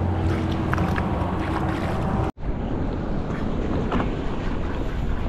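Strong wind buffeting the microphone over choppy open water, with a faint steady hum under it for the first two seconds. The sound drops out for an instant about two seconds in, then the wind rumble carries on.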